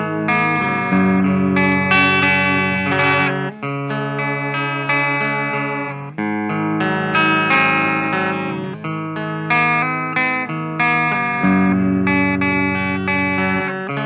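Kramer Baretta Special electric guitar played through the clean channel of an EVH 5150 EL34 50-watt amp, with the guitar's volume turned fully up and no effects. Strummed chords ring out in a repeating progression, a new chord about every one to two seconds.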